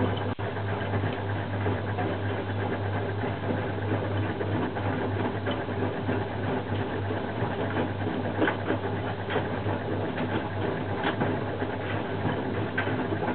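Hoover Zodiac 490 front-loading washing machine running on its wash cycle: a steady motor hum with the drum turning, and light ticks and rattles in the second half.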